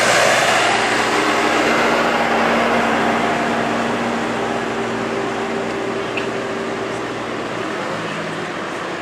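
Diesel engine of a Case loader running steadily close by, with a low drone and a broad rushing noise that fade gradually as the machine moves away.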